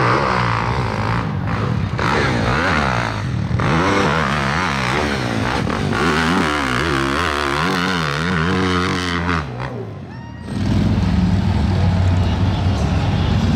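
Dirt bike engines revving up and down as they ride a motocross track, in short cuts that change abruptly. About ten seconds in this gives way to a steady low engine rumble.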